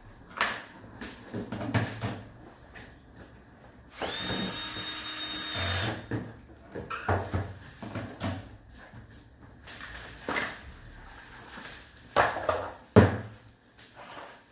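A small electric drill runs in one steady burst of about two seconds, about four seconds in, with a thin high whine. Scattered clicks and knocks of parts being handled come before and after it, the loudest near the end.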